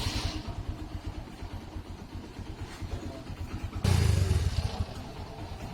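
TVS Metro Plus motorcycle's single-cylinder engine running with a fast, even low-pitched pulse, with a short rev about four seconds in. It is the engine noise that is presented as a bad sound, a fault.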